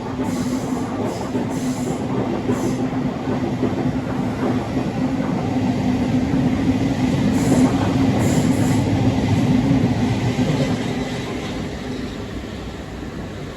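Class 700 electric multiple unit passing through the station, its wheels running on the rails with a steady low hum. It grows louder to a peak a little past halfway, then fades near the end.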